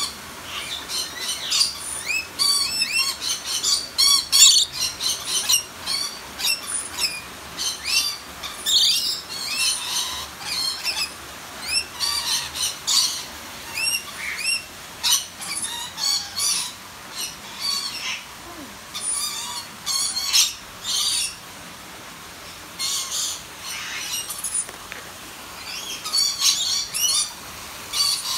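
A group of lorikeets screeching and chattering, with many short, shrill calls following one another in quick succession. The calls thin out briefly about three quarters of the way through.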